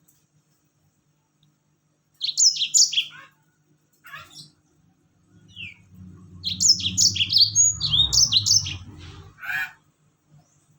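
Yellow-fronted canary (Mozambique canary) singing its rapid 'tembak' song: fast strings of high, sharply sweeping notes in two main bursts, one about two seconds in and a longer one past the middle, with a few shorter calls between. A low rumble sits under the second burst.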